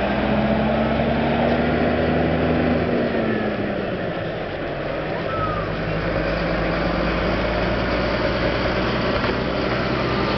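Motor vehicle engine running steadily at low speed, a low hum that eases off about three seconds in and picks up again about two seconds later, over general street noise.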